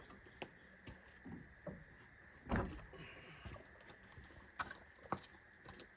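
Faint scattered knocks and clicks, with one dull thump about two and a half seconds in, over a faint steady high hum.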